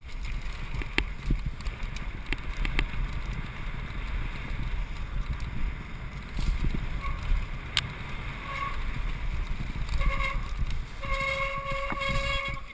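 Downhill mountain bike ridden fast over a rough dirt trail, heard from a helmet camera: a steady rumble of tyres and wind with sharp knocks and rattles from the bike over rocks and roots. Brief squeals from the disc brakes come and go, and near the end the brakes squeal in a steady high tone as the bike slows to a stop.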